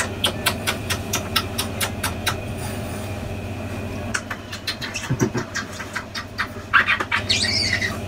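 Rapid kisses on the cheek and lips, a quick run of wet smacks about three or four a second, over a steady low hum. A brief high squeaky sound comes near the end.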